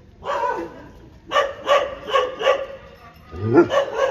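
German shepherd whining and yelping in short high calls, about three a second in the middle, with a longer call near the start and one that rises and falls near the end: distress at being left behind.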